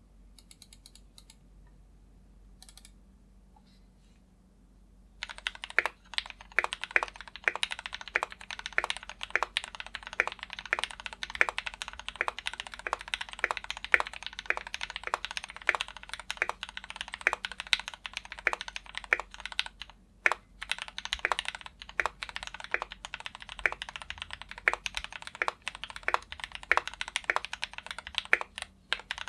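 Typing on a Heavy Shell Barix 87 mechanical keyboard with lubed Gateron Cap Yellow linear switches, lubed Durock stabilisers and ABS keycaps. A few faint taps come first, then steady, fast typing starts about five seconds in, with a brief pause near the twenty-second mark.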